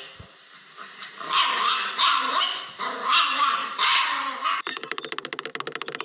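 A dog barking, four sharp high yaps spread over a few seconds. Near the end the sound cuts abruptly to a fast, even clicking, like typing on a keyboard.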